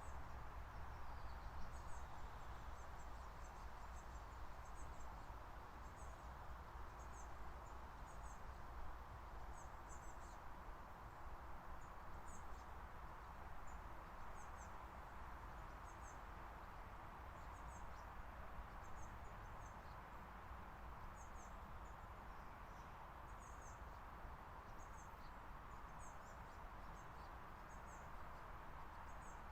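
Faint outdoor ambience: a steady hiss with a low rumble, and small bird calls, very high, short chirps, often in pairs, repeating every second or so.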